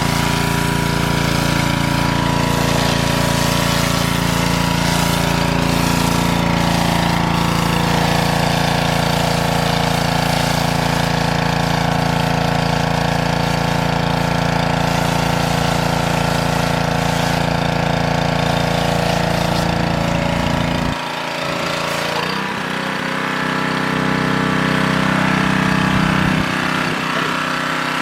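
Engine-driven pressure washer running steadily, with the hiss of its water spray on top. About 21 seconds in, the deep engine hum drops away and the sound shifts to a lighter running tone.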